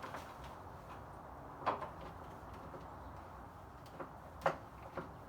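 A hand screwdriver working screws out of an old console stereo cabinet: a few short, sharp squeaks and clicks. The loudest come about one and a half seconds in and again near four and a half seconds.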